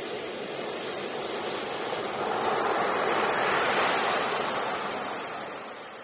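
Ocean surf: a wave breaking and washing up the shore as foam, the rushing hiss swelling about two seconds in, loudest near the middle, then fading away.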